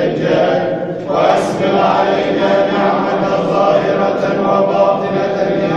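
Group of men chanting dhikr together at a Sufi hadra, a steady sustained chant of many voices in unison with no instruments.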